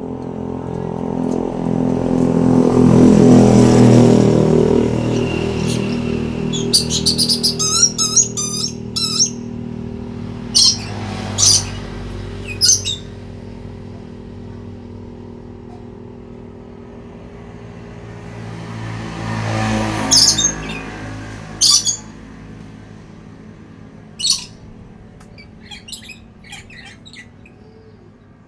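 A vehicle passes near the start. Then a lory gives a rapid warbling trill and a run of short, high-pitched calls. A second vehicle passes about twenty seconds in, and softer chirps follow near the end.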